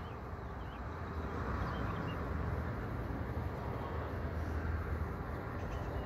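Wind buffeting the microphone: a steady low rumbling noise, with a few faint high chirps in the background.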